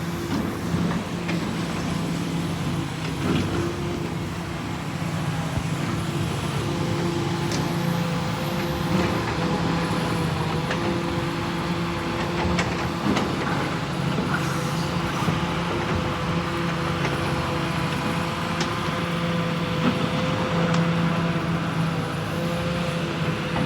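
Heavy diesel engine running steadily with a constant low hum, over street noise and a few light clicks.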